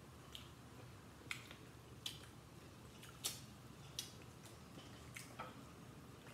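Snow crab leg shells being cracked and snapped apart by hand: a string of short, sharp cracks, about seven spread over several seconds.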